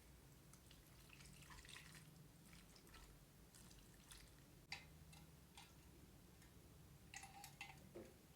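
Faint, wet eating sounds of spicy cream noodles being eaten: scattered soft clicks and smacks, with a sharper one about halfway through and a small cluster near the end.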